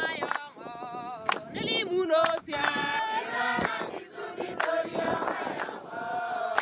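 A group of voices, mostly women's, singing together unaccompanied, with a sharp beat about once a second.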